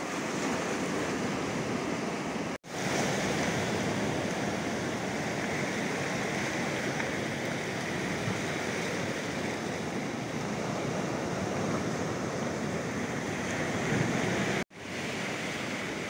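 Strong surf breaking and washing over a rocky, pebbly sea shore, a steady rush of water. The sound cuts off for an instant twice, a few seconds in and near the end.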